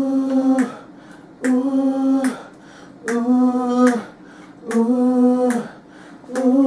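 Gospel choir singers singing a short held note together, about the same pitch each time, repeated five times about every one and a half seconds.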